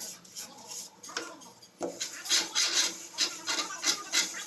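Plastering float scraping across fresh cement plaster in repeated rasping strokes. The strokes are sparse at first, then come about two or three a second from about two seconds in.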